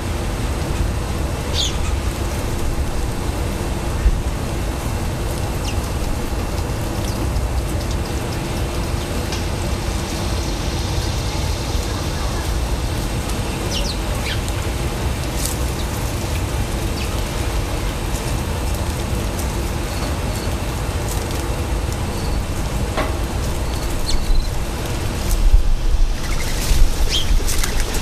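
Steady low outdoor rumble with a few short, high bird chirps scattered through it, and a few louder bumps near the end.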